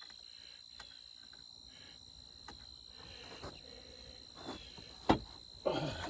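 A few scattered knocks and clatters, the loudest a sharp knock about five seconds in, over a steady high-pitched tone.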